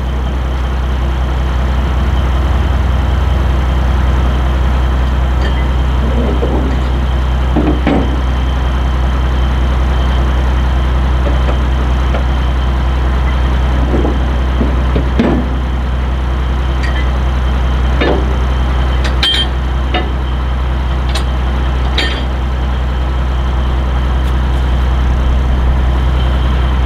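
Heavy diesel truck engine idling steadily, with a few sharp clanks and clicks on top.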